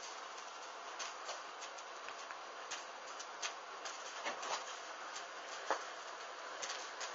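Fabric of a hanging bustier burning in small flames, with irregular crackles and ticks over a steady hiss; the sharpest crackle comes a little before six seconds in.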